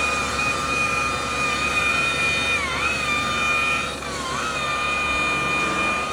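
Electric car-polishing buffer with a wool pad running with a steady motor whine as it works the paint. Its pitch dips briefly twice, about 3 and 4 seconds in.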